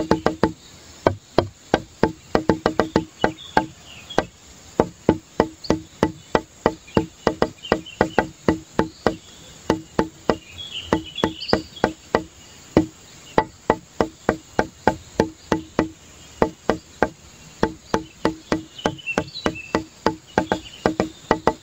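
Rapid run of sharp wooden-sounding clicks, several a second, each at the same low pitch, with faint high chirps here and there.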